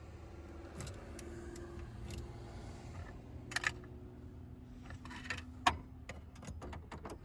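Light metal clicks and rattles of a pick raking the single-sided wafers of a 1994 Chevrolet Silverado's ignition lock, trying to make the cylinder turn without a key. The clicks come irregularly, with sharper ones a little past the middle and again about three-quarters through, over a low steady hum.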